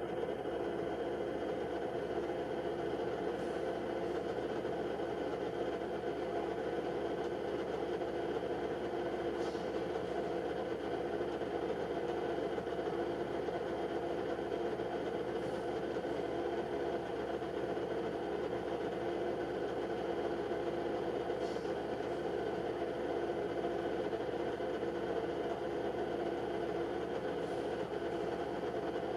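A steady mechanical hum with a faint high tick about every six seconds.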